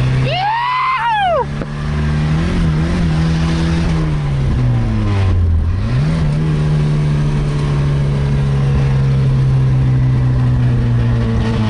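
Chevrolet Opala's four-cylinder engine pulling hard under acceleration, heard from inside the cabin. Its note holds steady, dips once about five and a half seconds in and climbs back. A short high whoop rises and falls in the first second and a half.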